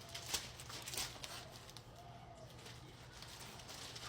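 Cellophane wrap crinkling and rustling as it is handled, with a few sharp crackles in the first second or so and softer rustling after.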